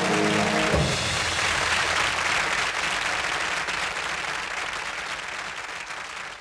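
Closing music ending on a held chord, cut off by a low thump under a second in. Studio audience applause follows and fades away.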